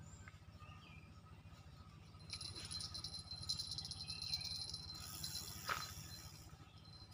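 Fishing reel being wound in, a rapid high rattling whir that starts about two seconds in and stops abruptly about four seconds later.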